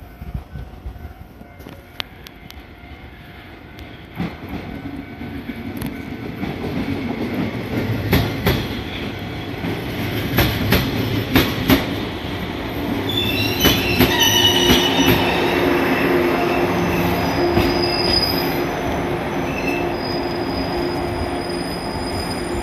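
Shinano Railway 115 series electric train pulling into a platform. Its wheels clack over rail joints as it comes closer and louder, then high squealing sets in through the second half as it brakes to a stop.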